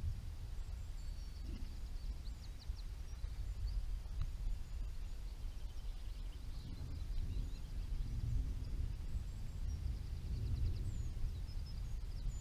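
Small birds chirping and trilling on and off over a steady low rumble that swells twice.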